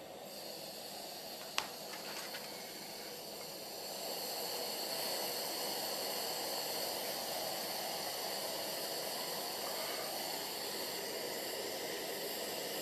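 MSR Simmerlite liquid-fuel stove, converted to burn denatured alcohol through a lathe-turned 0.95 mm jet, running steadily under pressure at a hot flame, with a steady rushing noise that grows louder about four seconds in. A single sharp click comes about a second and a half in.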